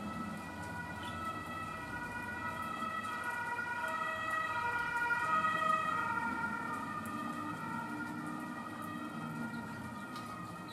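Emergency vehicle siren sounding in alternating steady tones, growing louder to a peak about halfway through and then fading, over steady rain.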